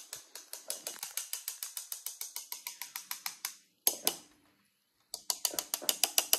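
Metal spoon tapping rapidly on a stainless-steel mesh sieve to shake henna powder through, about seven light metallic clicks a second. The tapping breaks off about 4 s in and starts again a second later.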